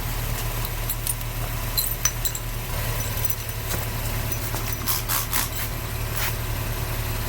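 Car engine idling with a steady low hum, while soapy water is sprayed onto the tire in a few short squirts, around two seconds in and again around five seconds in.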